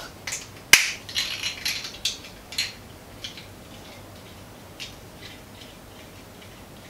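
Small plastic parts of a ring light kit being fitted together by hand: one sharp snap about a second in, a quick run of clicks and rattles for the next two seconds, then only occasional faint clicks.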